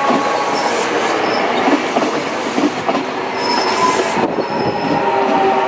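KRL Commuterline electric multiple unit passing close by: a steady loud rumble of steel wheels on rail with occasional clacks, and brief high-pitched wheel squeals a few times.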